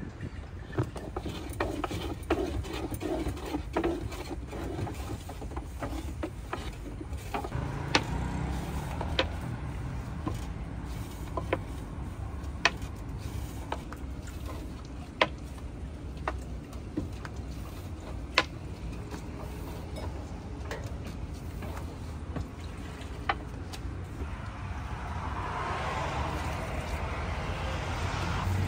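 Food-preparation clatter: scattered sharp clicks and knocks over a steady low hum, with a louder rushing noise building near the end.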